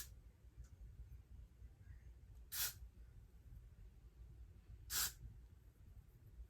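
Three short hissing sprays from a spray bottle, about two and a half seconds apart.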